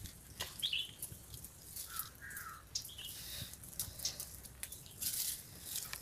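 A small open fire of dry leaves crackling, with sharp clicks and brief hissing flare-ups, while a few short bird chirps sound now and then, about three in the first half.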